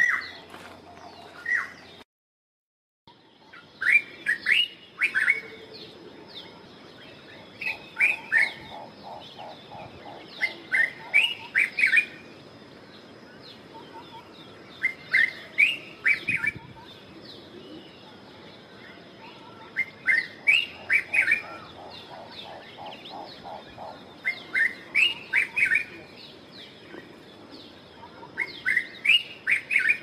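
The last calls of a black-headed oriole, then after a second's gap a dark-capped bulbul singing: short bursts of quick, fluty notes, repeated about every four seconds.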